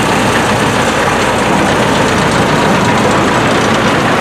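Vintage road roller's engine running steadily as the roller rolls slowly past.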